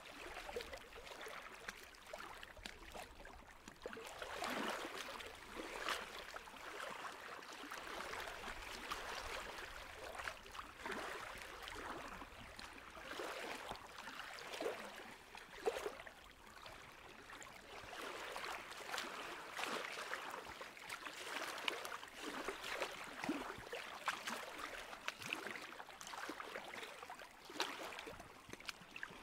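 Steady sound of running water, like a small stream, with many small irregular splashes and bubbles.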